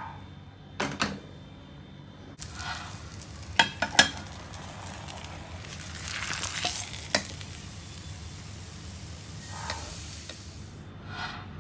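Food frying in hot oil, a sizzling hiss that starts a couple of seconds in and dies away near the end. A few sharp knocks of a utensil against the pan, the loudest two close together about four seconds in.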